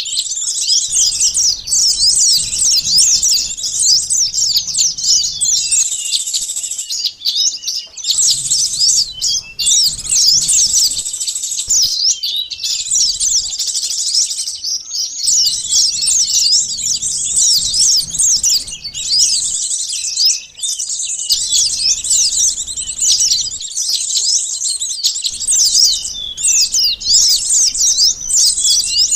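Bird-lure recording of small birds, konin and sunbirds, chattering busily: dense, rapid, high chirps and twitters, broken by a few brief pauses.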